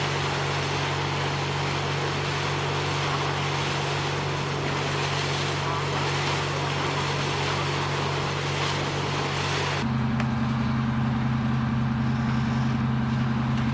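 A boat's engine running steadily, a low hum under a rush of wind and water noise. About ten seconds in, the wind and water noise drops away sharply and the hum continues at a slightly different pitch.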